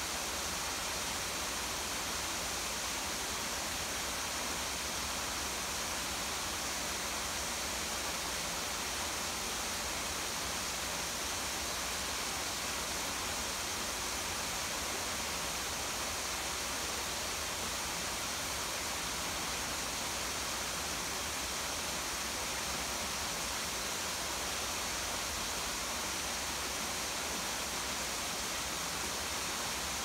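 Steady rush of water from a small garden waterfall, mixed with rainfall, an even hiss with no breaks or changes.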